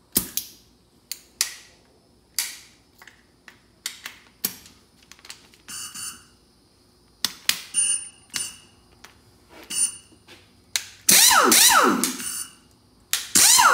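Hand tools and metal parts clinking and knocking as they are handled: a run of short, sharp, irregular clicks, some with a brief metallic ring. About eleven seconds in there is a much louder burst of noise lasting about a second, and another shortly before the end.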